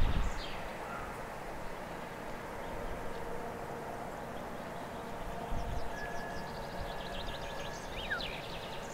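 Birds chirping and trilling over a faint steady background hum, with one short rising whistle near the end. Wind rumbles on the microphone at the very start and dies away.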